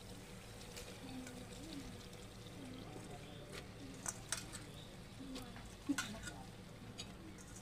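Metal spoon scraping and knocking in an aluminium pressure cooker as chopped spinach goes onto oily fried tomato-onion masala. A few sharp clicks come from about three and a half seconds in, the loudest near six seconds.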